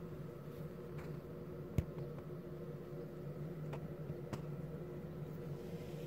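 A steady low mechanical hum with several held tones, with a few faint clicks and one sharper click nearly two seconds in.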